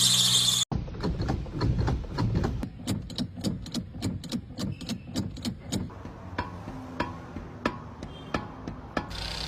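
A high squeal that cuts off suddenly, then a car's repeated sharp metallic knocking or clicking, about three a second at first and slowing to roughly one every two-thirds of a second from about six seconds in.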